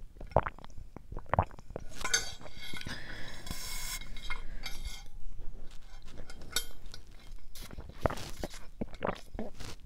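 Close-miked sipping through the straw of a metal insulated water bottle, with clinks of the bottle and wet mouth clicks.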